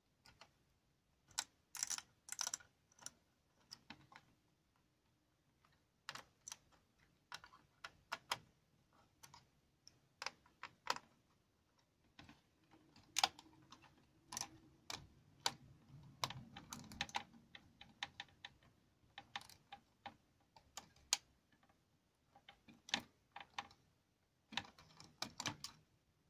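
Scattered light clicks and taps of a small screwdriver working the screws of a laptop's CPU heatsink, with small metal parts being handled. The clicks come at irregular intervals.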